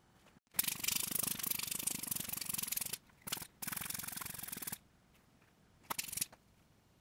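Rasping, rubbing noise: one long spell of about four seconds with a short break in it, then a brief burst near the end.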